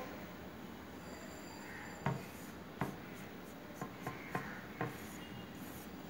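A hand handling a sheet of paper: a faint steady rubbing with six sharp taps, the two loudest about two and three seconds in and four smaller ones close together a little later.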